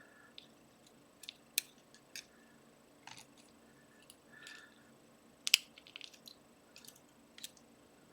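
Scattered small metallic clicks and taps of a pin tumbler lock being taken apart, as its driver pins are picked out and handled, the loudest click about five and a half seconds in.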